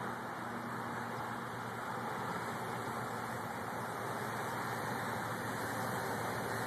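Turbo Ace Matrix quadcopter's motors and propellers running steadily as it hovers low over the ground. The sound is an even rushing drone with a faint low hum.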